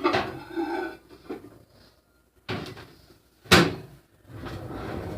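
Microwave oven door handled: a few knocks, then the door shut with one sharp clunk about three and a half seconds in. A second later the microwave starts running with a steady low hum.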